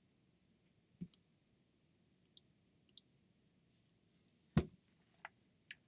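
A handful of faint, sharp clicks and taps, some in quick pairs, with one louder knock about four and a half seconds in.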